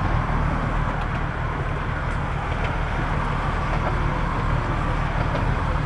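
Boat engine running steadily under way, a constant low hum with a wash of wind and water noise over it.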